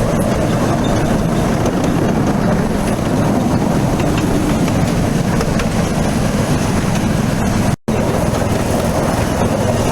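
Steady running noise of a train heard from aboard it: a continuous low rumble. The sound cuts out completely for an instant about eight seconds in.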